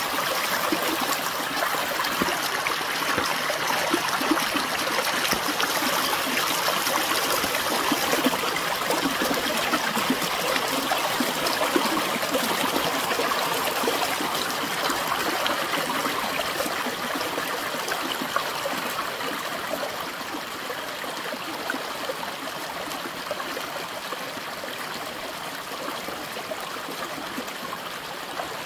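Small woodland brook running over a low cascade of mossy wood and stones: a steady rush of splashing water that fades gradually over the last third.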